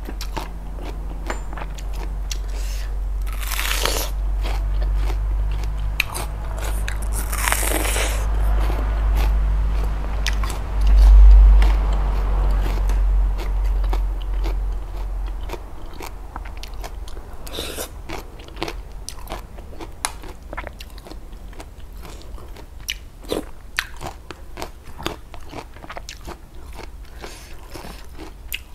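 Close-miked chewing of a crunchy mouthful of spicy laab made with chopped vegetable stems and shelled river snails: many quick, wet crunches throughout, with two longer hissing sounds about 4 and 8 seconds in.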